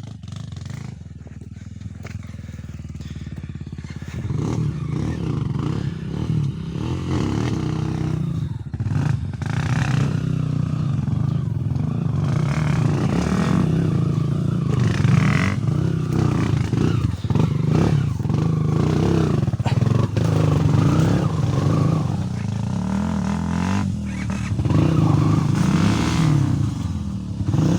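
Honda trail motorcycles, a Tornado and an XR200, with single-cylinder four-stroke engines, riding a dirt trail. The engines rev up and down unevenly under load and get louder about four seconds in.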